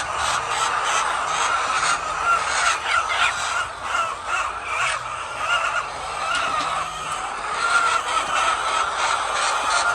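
A large flock of laying hens calling all at once, a dense steady chorus of many overlapping voices.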